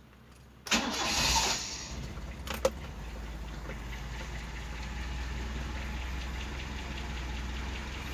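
Toyota LiteAce engine cold-started: it cranks and catches about a second in, then settles into a steady idle with a low hum. A sharp click sounds a couple of seconds in.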